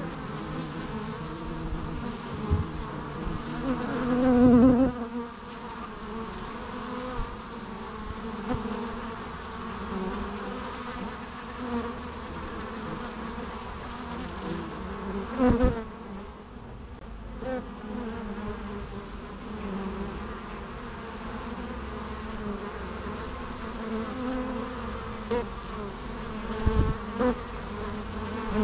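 Bees buzzing continuously, several overlapping drones at once. Louder swells come as single bees fly close past: the strongest about four seconds in, others near the middle and near the end.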